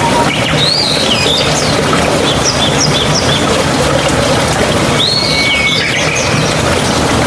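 Steady rush of a mountain stream with songbirds calling over it: a short chirped phrase about half a second in, a run of quick high notes around two and a half seconds, and another phrase about five seconds in that ends on a held whistle.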